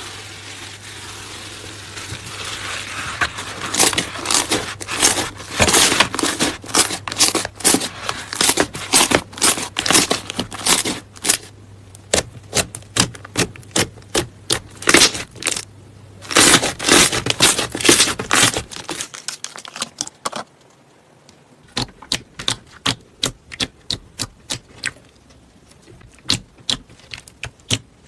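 Slime being squeezed and pressed by hand, giving rapid trains of sharp popping clicks and crackles. A low hum lies under the first two-thirds and stops; after that the pops are sparser and quieter.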